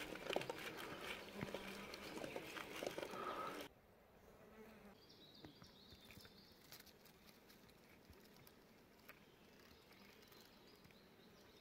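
Rustling with small snaps and clicks, from movement through forest undergrowth, for the first few seconds. It cuts off abruptly, leaving quiet forest air with a faint, high insect buzz.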